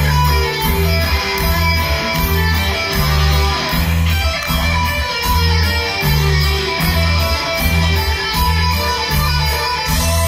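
Live rock band playing a driving instrumental passage: electric and acoustic guitars over a pulsing bass line and drums, with keyboards, in a steady even beat.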